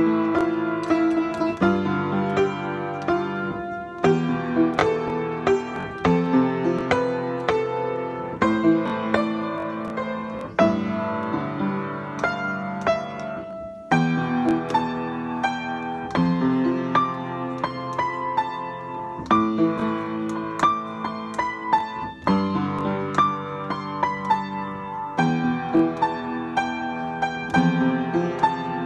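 Upright piano played with both hands: ringing chords in the low and middle register with a melody above, in a freely improvised piece. The playing breaks off briefly about fourteen seconds in.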